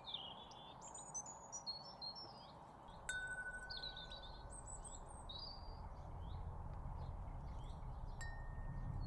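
Birds chirping and calling throughout, with a single struck metal chime ringing on one steady note about three seconds in and a fainter chime tone near the end. A low rumble grows louder beneath from about three seconds on.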